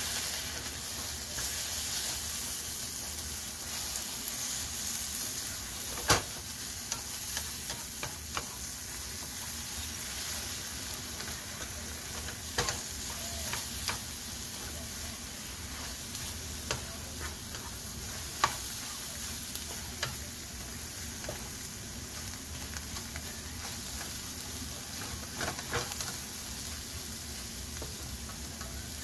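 Scrambled eggs and chopped vegetables sizzling steadily in a nonstick frying pan while a plastic slotted spatula stirs and scrapes through them. Scattered sharp taps of the spatula against the pan break in, the loudest about six seconds in.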